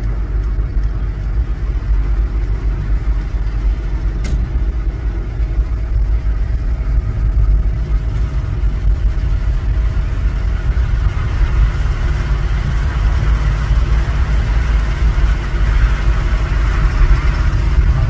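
Car driving, heard from inside the cabin: a steady low rumble of engine and tyres on the road, with the road hiss growing a little louder in the second half.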